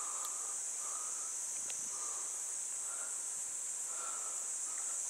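Steady, high-pitched chorus of insects, with short, fainter lower calls repeating about once a second.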